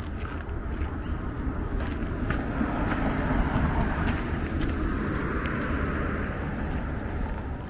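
A car passing on the street. Its tyre and engine noise swells to a peak about halfway through, then fades near the end.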